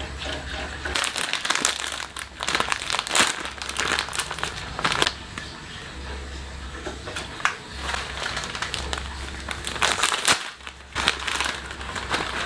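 Plastic instant-noodle packaging crinkling in irregular bursts as the packets are handled and torn open, over a low steady hum.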